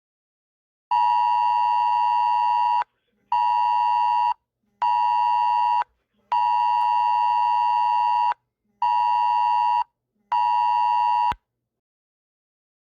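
Electronic emergency-alert tone: six beeps of one steady, buzzy pitch in a long, short, short pattern played twice. It comes right after a simulated tornado warning bulletin.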